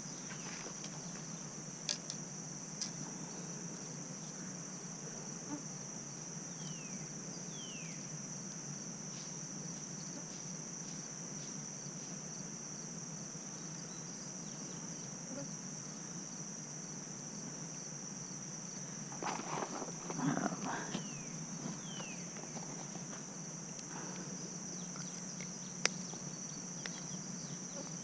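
Steady, high-pitched drone of insects, with a few sharp clicks and a short spell of rustling and knocks about twenty seconds in.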